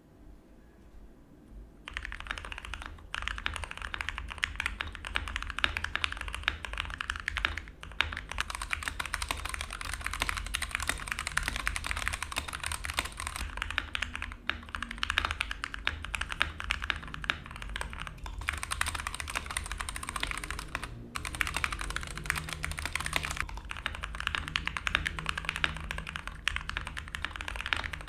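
Fast, continuous typing on a Gamakay K61 mechanical keyboard with Gateron Brown switches and HyperX Pudding keycaps. The typing starts about two seconds in and has a few brief pauses.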